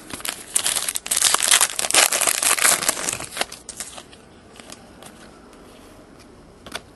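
A trading-card pack's foil wrapper being torn open and crumpled: dense, loud crackling for about three seconds, then a few faint clicks as the cards are handled.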